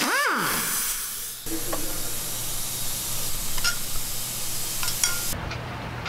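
Pneumatic impact wrench on the engine's flexplate bolts, its air motor spinning down with a quickly falling whine, then a steady hiss of compressed air that stops suddenly about five seconds in.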